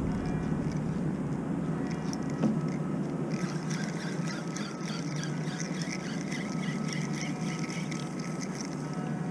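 Spinning reel being cranked, making a quick, even ticking that starts about three seconds in, over a steady low rush of wind and water around the kayak.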